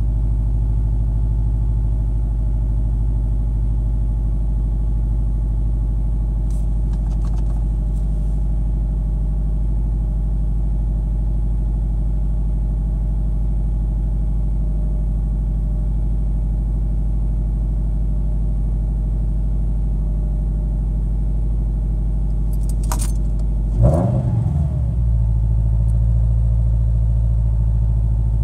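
2013 Scion FR-S flat-four boxer engine fast-idling steadily on a cold start, at about 1,500 rpm, through an equal-length header, catless front pipe and Invidia N1 exhaust, heard from inside the cabin. Near the end there is a sharp click, then a brief louder jolt a second later.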